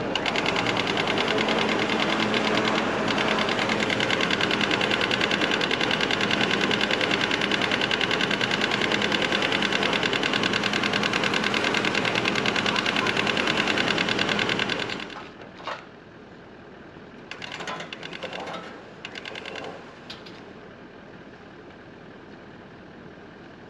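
Cordless electric winch running steadily, paying out cable to lower a boat trailer down a steep ramp, a fast even motor-and-gear buzz. It stops abruptly about fifteen seconds in, leaving a few brief knocks.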